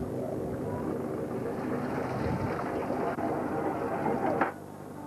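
Fishing boat's diesel engine running steadily, mixed with wind noise on the microphone. The level drops suddenly about four and a half seconds in.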